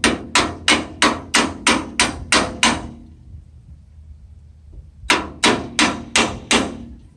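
Metal-on-metal hammering: the old top link bracket, used as a hammer, strikes the top link pin to drive it into the new pivot bracket. There are about nine quick blows at about three a second, a pause of about two seconds, then five more.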